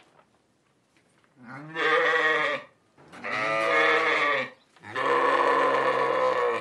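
Sheep bleating three times, each call a second or more long, starting about a second and a half in.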